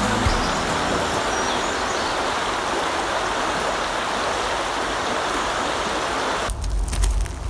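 A stream of running water rushing steadily, stopping abruptly about six and a half seconds in.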